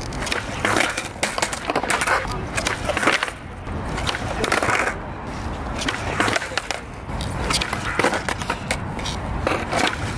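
Skateboard wheels rolling on rough concrete, with sharp clacks of the tail popping for a laser flip (360 heelflip) and the board clattering down onto the concrete.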